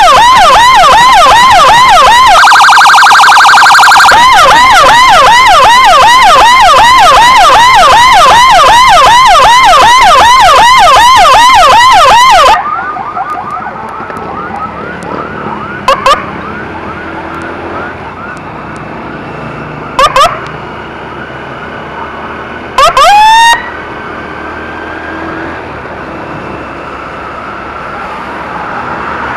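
Electronic emergency siren in a fast yelp, quick rising sweeps about two to three a second, broken near the start by a second or so of steady buzzing tone. About halfway through it cuts off suddenly, leaving road and engine noise with three short siren blips.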